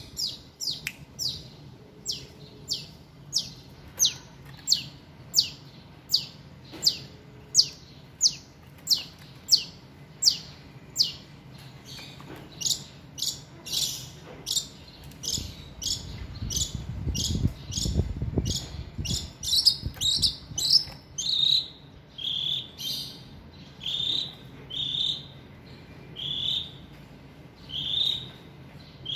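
Long-tailed shrike (cendet) calling over and over: sharp, high falling notes about one and a half a second, crowding together around the middle, then changing to shorter, lower notes about once a second near the end. A low rumble rises and fades in the middle.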